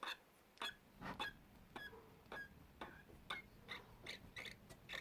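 Primer bulb on a Shindaiwa 305s chainsaw being pressed over and over, faint clicks about twice a second, drawing fuel from the tank into the carburettor to prime it.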